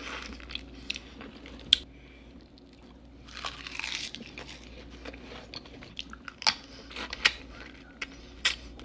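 Close-up wet eating sounds of raw soy-marinated crab: sharp cracks and crunches of the shell being bitten, wet smacking, and a longer sucking sound about three and a half seconds in as the meat and sauce are sucked out. The loudest single crack comes a little under two seconds in.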